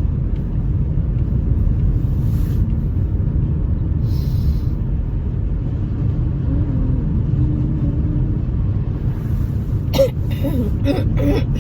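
A woman's sneeze about ten seconds in, sudden and sharp, followed by a few short breathy sounds. It sits over a steady low rumble.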